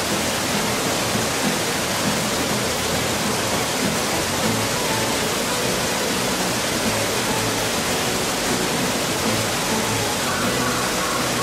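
Steady rushing noise with no distinct events, with faint voices of onlookers in the background, clearest near the end.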